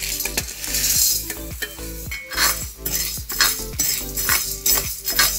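Metal spatula scraping and clinking against a pan as chickpeas and raw rice are stirred while dry-roasting, about three strokes a second.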